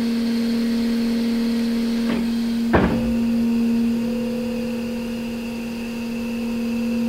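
Coil form bender's drive running with a steady hum. A click comes, then a louder clunk just before three seconds in as the bend starts, and after it a thin whine as the motor rotates the bending leaf through a 90-degree bend.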